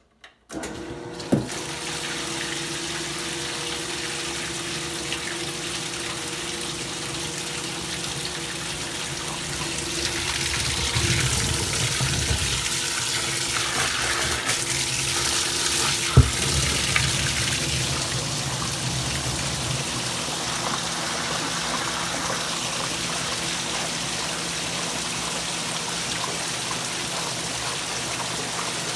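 Electrolux Prosdócimo washing machine taking in water for the rinse: water running steadily into the tub, starting abruptly about half a second in and swelling a little midway. There is a single sharp knock about 16 seconds in.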